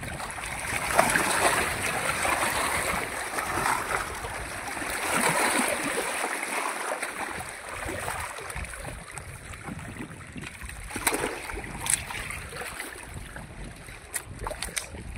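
Small waves lapping against a rocky shore while a hooked fish splashes at the surface as it is pulled in. A few sharp clicks come near the end.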